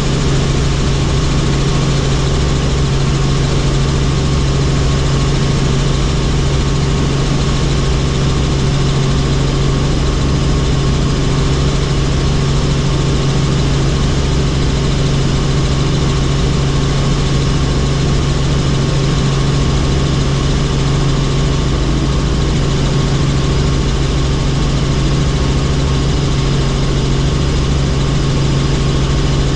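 Helicopter's rotor and turbine engine running steadily, a loud, even drone with a strong low hum that does not change.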